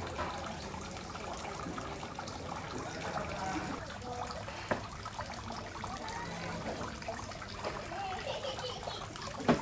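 Small tiered stone garden fountain trickling steadily, with indistinct conversation behind it. A brief click about halfway through and a short sharp knock near the end.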